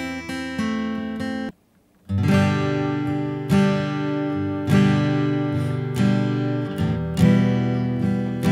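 Steel-string acoustic guitar strumming chords, a strong strum roughly once a second, picked up raw by a condenser microphone with no EQ. The sound cuts out for about half a second near the start, then the strumming resumes.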